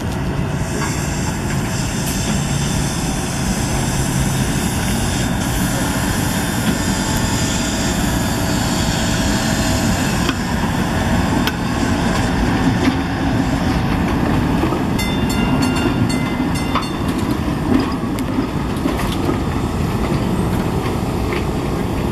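SEPTA Kawasaki light rail vehicle rolling past on street track: a steady rumble of wheels on rail and running gear. A short run of faint, evenly spaced ticks comes about two thirds of the way through.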